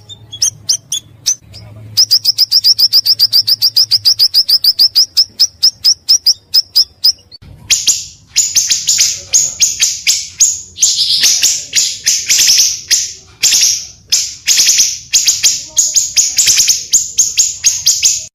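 Recorded song of the pancawarna bird, used as a lure and training call. It opens with a fast, even run of high chirps, about eight a second, then moves after about seven seconds into louder, harsher chirping phrases broken by short pauses.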